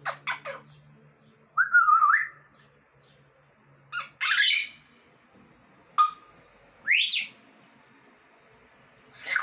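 Pet parrot giving a string of separate short squawks and whistles, about six calls with pauses between them. One call wavers about two seconds in, and another rises in pitch about seven seconds in.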